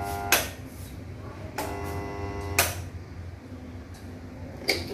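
Texmo double-capacitor water pump motor humming on mains power without turning: the rotor is jammed, locked by rust and scale around the impeller. The hum comes in two spells, each cut off by a sharp click, and there is another click near the end.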